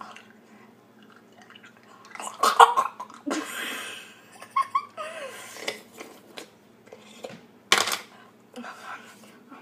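A girl's wordless reactions to the burn of hot jalapeño slices in her mouth: gasps and a long hissing breath out, short squeals and laughter. A short, sharp burst comes near the end.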